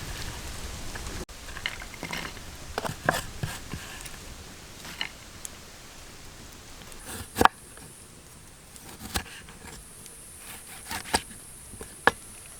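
Irregular sharp clicks and knocks, a dozen or so, the loudest about seven seconds in, with a faint steady high hiss starting about halfway.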